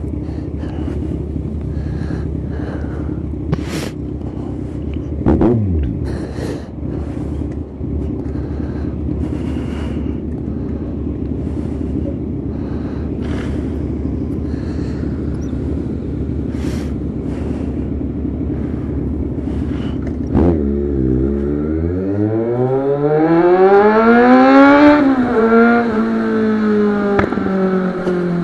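Kawasaki Z1000 inline-four motorcycle engine heard through a helmet microphone, running at a steady low note with scattered light taps for most of the time. About twenty seconds in the revs drop, then the engine pulls hard, its pitch rising for a few seconds under acceleration before easing off near the end.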